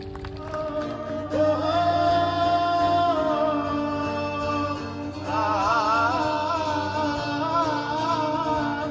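Singing over backing music, with long held notes that waver in a strong vibrato in the second half.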